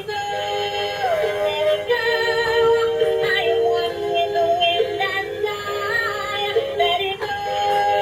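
Tinny electronic tune with a synthetic-sounding singing voice carrying the melody, thin and without bass.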